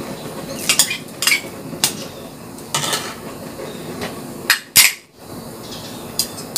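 Ceramic bowls clinking against an aluminium cooking pot and being set down on a countertop as ingredients are tipped in: a series of short, sharp knocks, the loudest two close together about four and a half seconds in.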